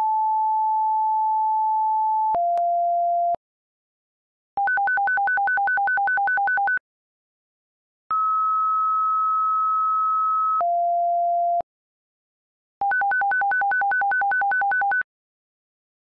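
Synthetic siren activation tones made in Audacity. A long steady tone steps down to a lower one, then comes a fast string of short beeps at two pitches, about five a second: the alert activation code. After a pause the sequence repeats with a higher first tone: the attack activation code.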